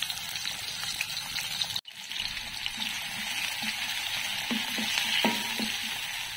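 Sliced shallots, ginger and garlic sizzling in hot oil in a wok: a steady frying hiss as they are sautéed toward browning. The sound breaks off for an instant about two seconds in.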